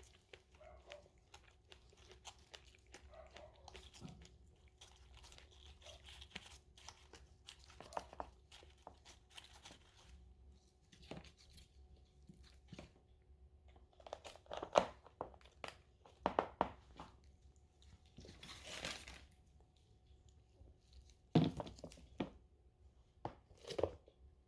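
Small close-up handling noises: scattered clicks, crinkling and tearing. A few louder ones come in the second half.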